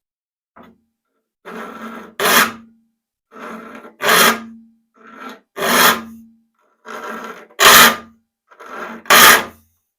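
A hand file rasping across the teeth of a rip hand saw as it is sharpened, strokes coming in pairs, a lighter one then a louder one, about one pair every one and a half seconds: two strokes per tooth, taking each tooth to a point. A brief low tone follows each louder stroke.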